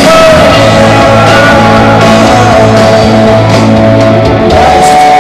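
Live rock band playing loud with electric guitar and bass in a passage between sung lines.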